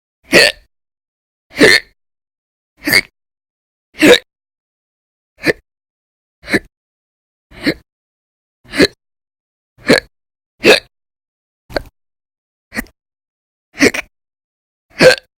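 A person hiccuping loudly and regularly, fourteen sharp hiccups a little over a second apart, part of a long bout of persistent hiccups.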